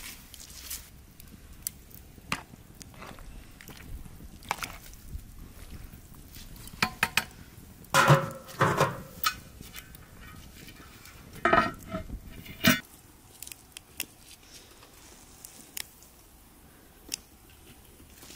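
Sharp crackles of an open wood fire under a cast-iron cooking pot, with two loud clusters of clattering knocks from cookware being handled, about eight and about eleven and a half seconds in.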